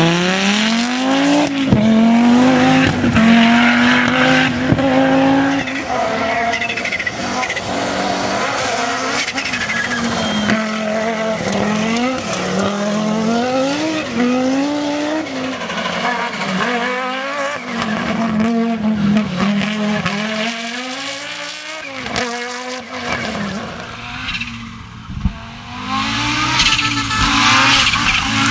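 Audi Sport quattro S1 E2 Group B rally car's turbocharged five-cylinder engine at full throttle, revving up hard through gear after gear. Its pitch climbs and drops back again and again, with a few sharp cracks in between.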